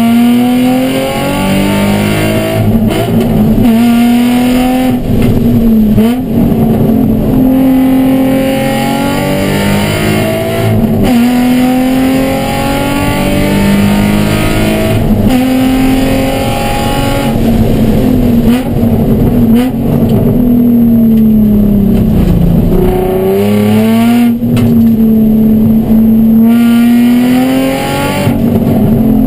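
Nissan 350Z race car's 3.5-litre V6 engine at racing speed, heard from inside the cabin, its note repeatedly rising under acceleration and dropping away at shifts and lifts. The car is short-shifted and down on power because of an ECU problem.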